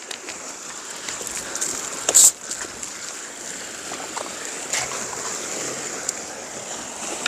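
Sea water washing against rocks, a steady hiss of surf, with a short sharp burst of noise about two seconds in.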